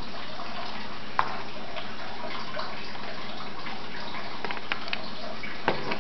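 A steady hiss with a few light clicks and taps: one about a second in and several near the end, from a plastic toy RC truck being handled.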